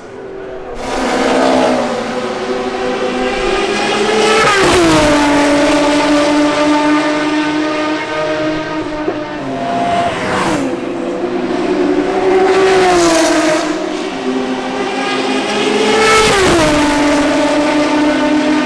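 BMW 3.0 CSL race car's straight-six engine at high revs as the car passes close by. The pitch climbs and then drops sharply as it goes past, about four seconds in and again near the end, with smaller rises and falls between.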